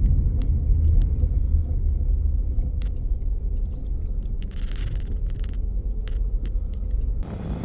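Low, steady rumble of a car driving, with scattered light clicks and knocks; the sound changes abruptly near the end.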